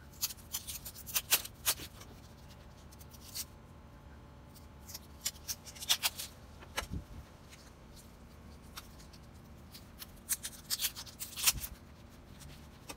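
Hands handling adhesive-backed Velcro patches on a ribbed vent panel and fabric vest: short crackles and rustles of backing paper being peeled and patches pressed down, coming in three bursts.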